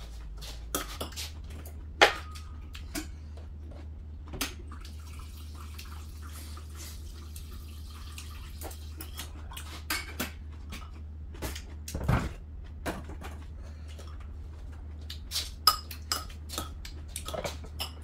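Metal chopsticks and spoon clinking against ceramic bowls and plates while eating, in scattered sharp clicks, the loudest about two seconds in, around twelve seconds in and near fifteen seconds in. A low steady hum runs underneath.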